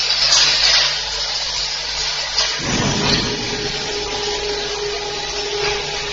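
Automatic flip-top cap closing machine running: the vibratory bowl feeder buzzes and plastic caps rattle along its track, making a steady mechanical rush. A steady hum tone joins in about two and a half seconds in.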